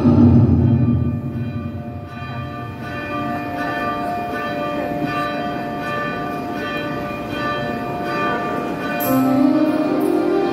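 Bells ringing, struck over and over so their tones overlap in a continuous peal, for the resurrection moment of the Easter service. Music fades out about two seconds in and comes back near the end.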